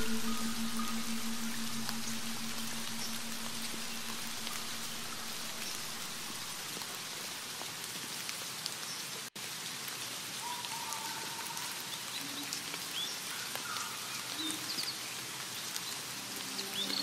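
Steady rain falling, with a few faint bird chirps over it. The last note of the music dies away in the first two seconds, and all sound cuts out for an instant about halfway through.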